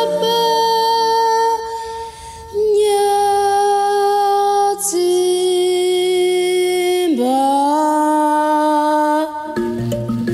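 A young solo singer holds long, slow notes through a microphone, moving to a new pitch every two or three seconds over a lower sustained note. Near the end the band comes in with a steady rhythm and a shaker.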